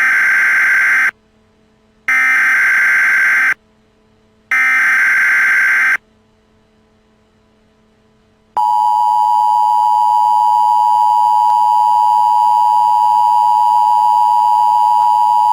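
Emergency Alert System signal: three bursts of the SAME digital header tones, each about a second and a half, with short gaps between them. After a pause of a couple of seconds, the steady two-tone EAS attention signal starts and holds.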